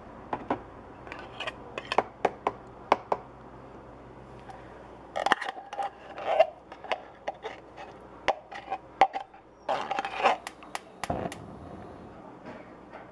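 Metal kitchenware clinking and scraping: the cut lid of a food can lifted off, then thick canned chili scraped out with a utensil into a stainless steel pot. Irregular sharp clicks and clatters, coming in two busy bursts with a quieter stretch between them.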